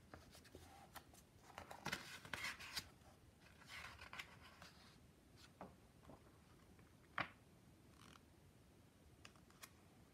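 A page of a picture book being turned by hand: faint paper rustling about two seconds in and again around four seconds, then a single sharp tap near seven seconds.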